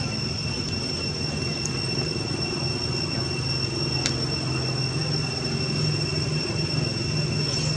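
A steady high-pitched whine held at one pitch, over a low, even rumble. A faint click comes about four seconds in. No cries or calls break the drone.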